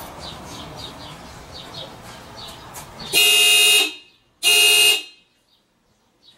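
Car horn honking twice, about three seconds in: two toots of under a second each, with a short gap between them.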